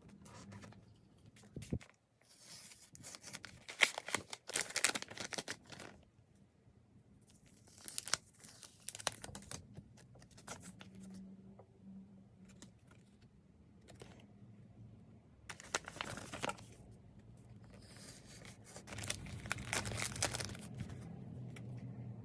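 Packaging being torn open and plastic wrapping crinkled by hand, in four separate bursts with scattered clicks between.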